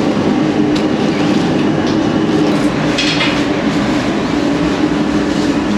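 Bakery machinery running with a steady mechanical drone: an even low hum under a constant rushing noise, with no pauses.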